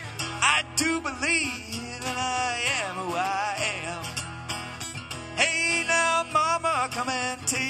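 Solo acoustic guitar strummed steadily, with a man singing over it in a country-folk style.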